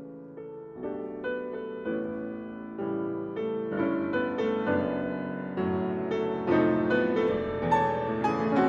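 Steinway grand piano played solo, a continuous run of notes and chords that builds steadily louder through the passage.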